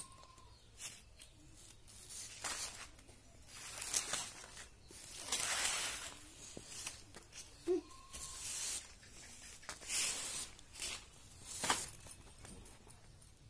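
Green banana-plant stalks being cut and peeled against a boti, a curved blade standing upright on its base: a series of short rasping, tearing strokes through the fibrous stalk, one every second or two.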